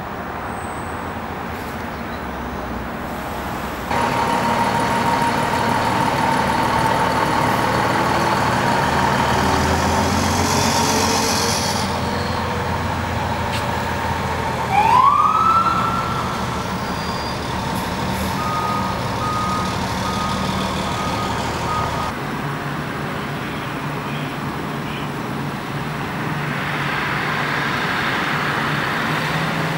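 A fire engine's diesel engine idling at an emergency scene, with a short siren whoop that rises quickly in pitch about halfway through, the loudest moment. Near the end the background changes to steady street traffic.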